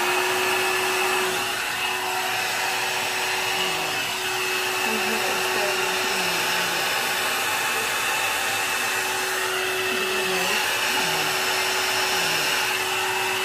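Handheld hair dryer running: a steady rush of blown air with a steady motor whine, which rises in pitch as the motor spins up just after it is switched on.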